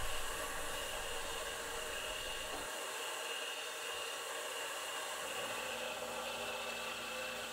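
PM25 CNC mill drilling small holes in an aluminium plate: a steady hiss from the mist-coolant nozzle aimed at the bit, with a thin steady high whine of the spindle under it.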